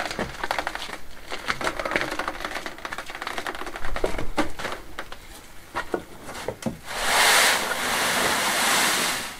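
Empty metal wheelbarrow rattling and clattering as it is wheeled over uneven stone slabs: a quick, irregular run of clicks and knocks. Near the end, about two seconds of steady rushing noise.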